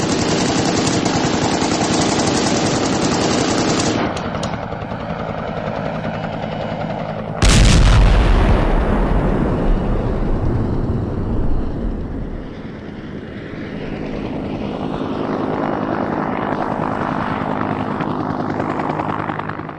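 Sound-effect helicopter rotor and engine with rapid machine-gun fire over it for about four seconds. The firing stops, and about seven and a half seconds in a loud blast goes off and dies away slowly. Then the helicopter noise swells again and fades out at the end.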